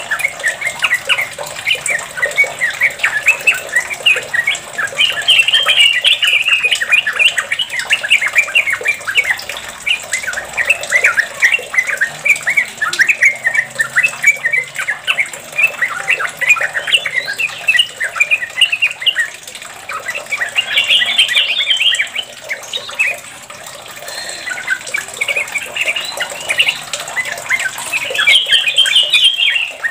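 Yellow-vented bulbul singing a long run of quick chattering notes, the continuous 'ropel' song, with a few louder, higher phrases and a short easing-off about three-quarters of the way through.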